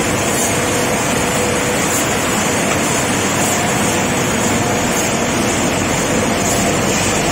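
Automatic hinge polishing machine running: a steady, even whir of its motors and spinning polishing wheels, with a faint steady hum.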